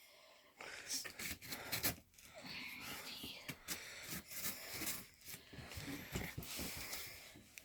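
Quiet, uneven scraping and rustling of a cardboard box being handled and cut open with a knife.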